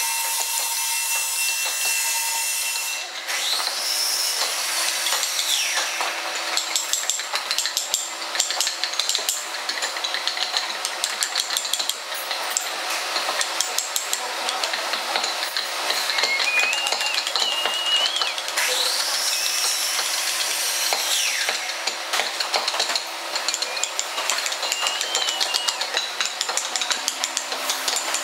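Steel hand chisel cutting and scraping into wood clamped in a vise: a dense run of small scratchy clicks. Twice a high whine rises and falls in the background, each lasting about three seconds.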